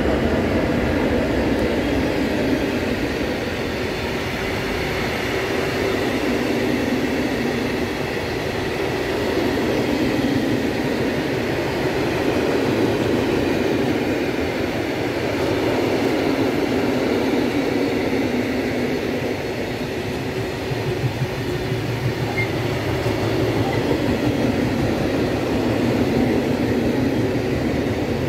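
Long freight train of open coal wagons rolling past behind a class 131 electric locomotive: a steady, loud rumble of steel wheels on rail that rises and falls gently as the wagons go by.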